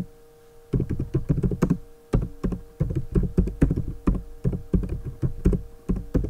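Typing on a computer keyboard: rapid runs of keystrokes that start about a second in, break off briefly after two seconds, then go on steadily.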